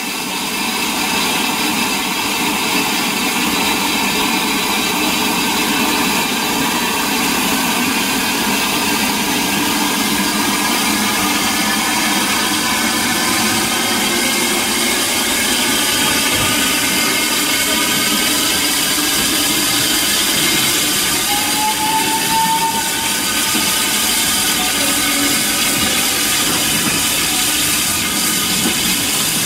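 WD Austerity 2-10-0 steam locomotive pulling away with its train of coaches, a steady mix of steam exhaust and rolling wheels. A short rising squeal sounds about two-thirds of the way through.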